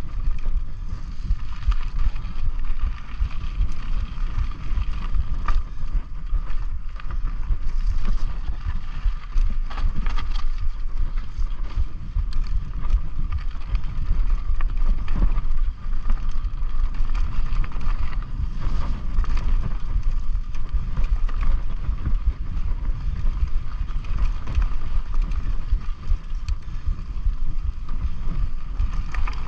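Mountain bike being ridden on a dirt trail: wind rumbling on the camera's microphone over tyre noise, with frequent small knocks and rattles from the bike going over bumps.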